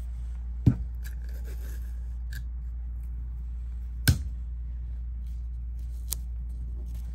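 Sharp clicks from taping fabric by hand: two loud ones about three seconds apart and a fainter one near the end, with light rustling of tape and fabric between them. A steady low hum runs underneath.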